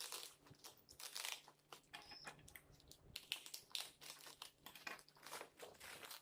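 Faint crinkling and rustling of parcel packaging being handled and opened, in many short irregular bursts.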